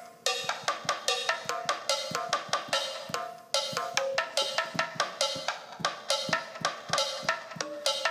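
Hand-drum sounds from a drum app on an iPhone 4s, tapped by two players in a quick salsa rhythm of several strikes a second. It plays through the phone's small speaker, so it sounds thin, with almost no bass.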